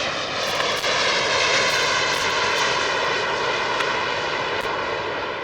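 Boeing X-48C blended wing body research aircraft's small turbojet engines whining as it climbs away just after takeoff. The steady, many-toned whine slowly drops in pitch and fades a little near the end.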